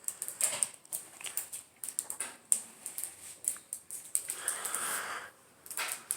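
A shattered glass table crunching: irregular small clicks and ticks of glass fragments still cracking and shifting. A short soft hiss comes about four seconds in.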